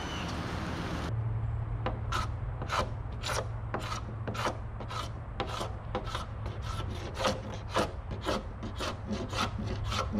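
A hand scraper pulled along a sailboat's hull in short, repeated strokes, about two a second, scraping old black residue off where the rub rail was. Under the strokes there is a steady low hum.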